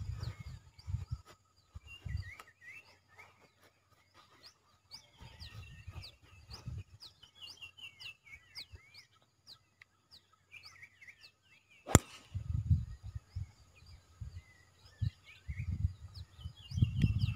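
A golf tee shot: a single sharp crack of the club striking the ball about twelve seconds in. Small birds chirp throughout, and low wind rumble on the microphone comes and goes in gusts.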